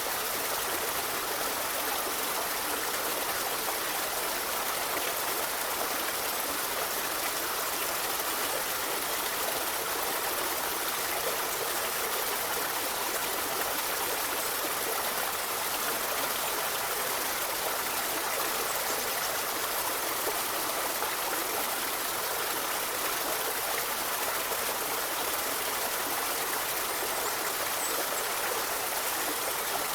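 A river or stream flowing over rocks: a steady, even rush of running water with no breaks.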